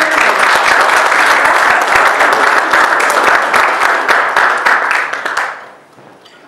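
Audience applauding with many hands clapping at once, dying away about five and a half seconds in.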